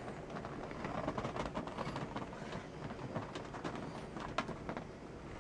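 A dog moving about and sniffing around a car's interior seats: faint rustling with scattered small clicks and taps.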